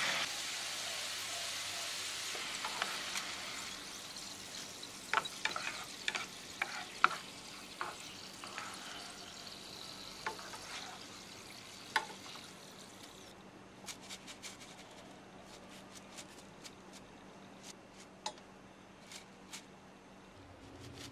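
Shoestring potatoes deep-frying in a saucepan of oil: a steady sizzle that gradually fades as the fries are lifted out. Scattered sharp clicks and taps of chopsticks and a metal mesh strainer against the pan run through it.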